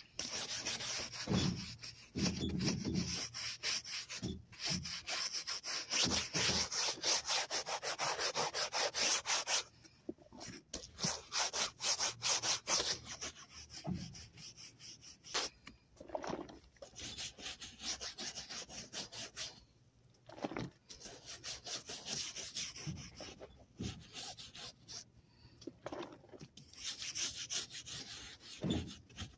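Stiff hand brush scrubbing soapy cleaner into a car back seat's cloth upholstery: rapid back-and-forth strokes, continuous for the first ten seconds, then in shorter spells with brief pauses.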